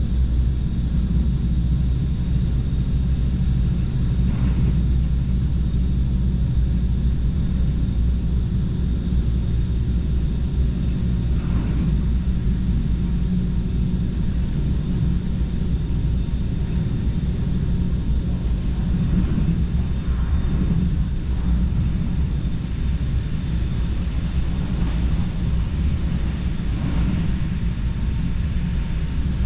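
Cabin of a moving electric passenger train: a steady low rumble of the wheels on the track and the running gear, with a faint steady high whine. A few light ticks come in the second half.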